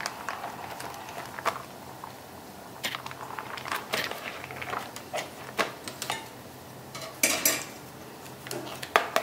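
Kitchen utensils and dishes clinking and tapping: irregular sharp clinks, busiest about seven seconds in, over a faint steady low hum.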